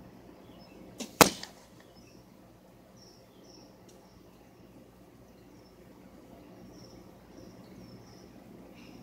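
A 1997 Browning Sierra compound bow shot, heard from the target end: a quieter snap of the shot about a second in, then about a fifth of a second later the loud smack of a carbon arrow striking the target.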